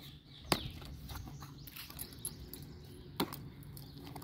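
Hands handling and opening a cardboard parcel box: faint rustling and scraping, with two sharp clicks, one about half a second in and one about three seconds in.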